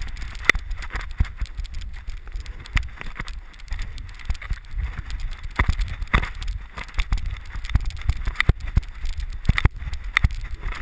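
Dog-mounted GoPro jostled as a Rhodesian ridgeback moves through snow: irregular knocks and thuds from the camera housing and the dog's movement, over a low rumble of handling and wind on the microphone.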